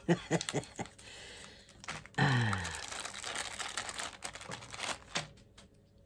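Packaging of a COVID-19 antigen test kit being handled and opened: a run of light clicks and crinkling of plastic and paper, with a brief falling hum about two seconds in.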